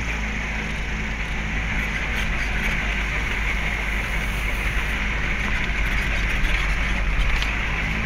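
Car running along an unpaved road, heard from inside the vehicle: a steady low engine hum under broad road and tyre noise, with light rattles and clicks, more of them in the second half.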